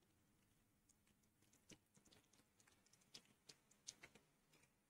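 Faint, sparse crackling and popping of cinnamon bark and fennel seeds starting to fry in a little hot oil in a stainless steel pot. Irregular small ticks begin about a second and a half in.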